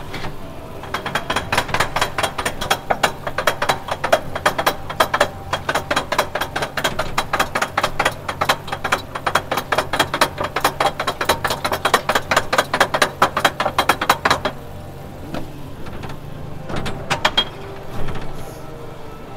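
Ghost train car climbing a chain-driven lift ramp, its anti-rollback ratchet clicking rapidly and evenly over a low steady hum. The clicking stops about fourteen seconds in, with a few stray clicks near the end.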